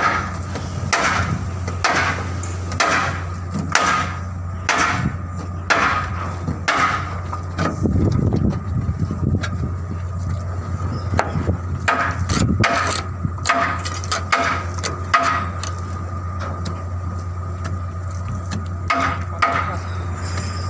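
Hammer blows on steel during repair work on a loader bucket, roughly one a second, each with a short ring, in three runs with brief pauses. A steady low machinery hum runs underneath.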